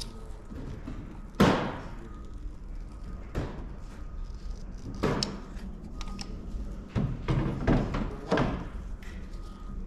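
A series of about six knocks and thumps from parts being handled, the loudest about a second and a half in.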